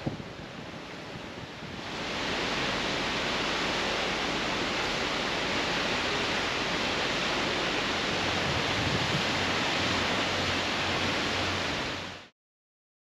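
Wind and sea surf, then from about two seconds in the louder, steady rush of a waterfall pouring down a rock cliff. It cuts off suddenly near the end.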